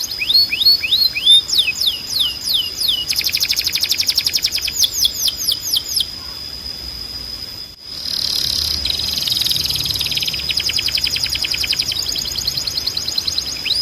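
Timbrado canary singing: a run of quick falling notes, then fast rattling trills. The song drops away for a moment a little past the middle, then resumes in rapid trills.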